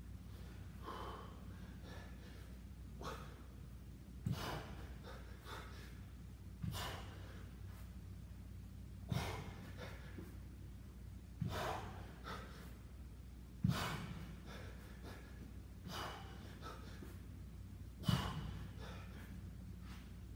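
A man breathing hard, recovering from exertion: heavy gasping breaths about every two to two and a half seconds.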